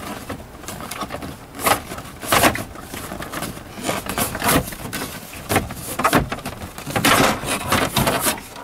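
Plastic center console side trim panels of a Ford Expedition being slid and pulled off by hand: a series of irregular clicks, knocks and scrapes of plastic against plastic.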